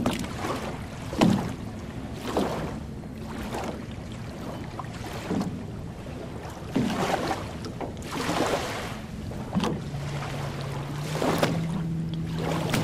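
Small lake waves lapping on a sandy shore, a soft wash every second or two, over a low rumble of wind on the microphone. A faint steady low hum comes in about ten seconds in.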